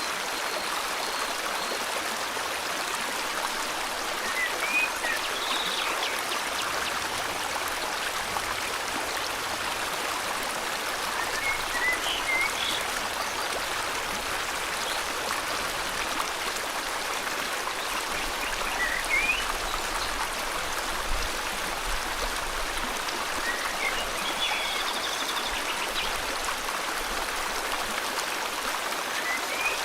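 River water flowing steadily, with a bird giving short rising chirps about five times, every five to seven seconds.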